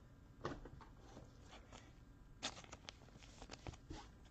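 Faint handling of trading cards: short scattered scrapes and flicks of card stock as cards are slid and turned one after another, the clearest about half a second and two and a half seconds in.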